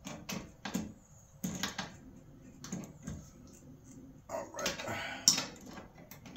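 Socket ratchet tightening a half-inch bolt on a boat trailer's bow stop: short clicking strokes every half second or so, then a longer run of clicking about four seconds in that ends in a sharp metal clack.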